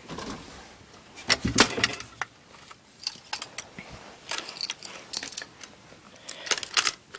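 Airsoft guns being handled: clusters of sharp clacks and rattles from plastic and metal parts knocking together as the guns are moved about.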